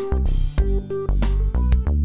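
Upbeat instrumental background music with a steady beat, a bass line and held notes.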